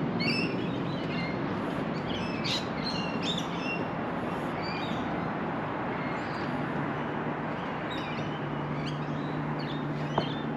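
Birds chirping in short, quick calls, busiest in the first few seconds and again near the end, over a steady background rush. A low steady hum comes in about halfway through.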